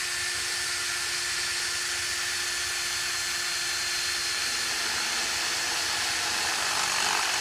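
Ryobi cordless drill running steadily with its bit pressed against a bare hard-drive platter, grinding and scratching across the metal disc: a steady hissing scrape over an even motor note, which drops a little in pitch about halfway through.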